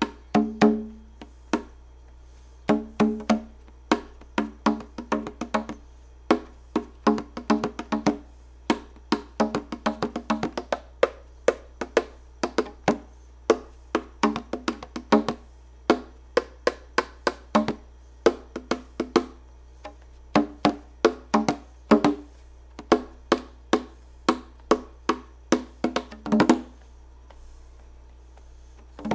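Background music: a quick, uneven run of short, sharp struck notes on a woody-sounding percussion instrument, dropping out near the end.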